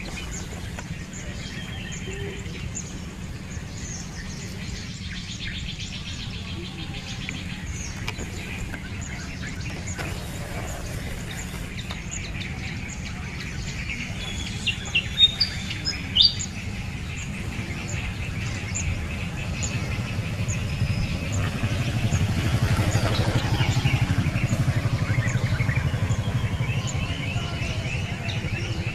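Birds chirping: quick, repeated high chirps throughout, with a few louder, sharp chirps about halfway through, over a steady low rumble that swells in the second half.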